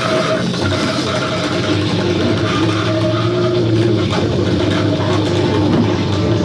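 Lo-fi electronic noise drone from a tabletop rig of effects pedals, a small keyboard and cassette players: a steady, buzzing drone of several held low and middle tones over a noisy hiss.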